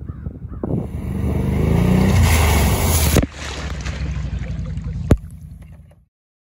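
Can-Am Outlander 850 ATV's V-twin engine revving as the quad drives through a creek, its rising engine note mixed with heavy splashing. The sound cuts abruptly a little past three seconds to a steadier engine and water sound, with a single sharp knock near five seconds, then fades out.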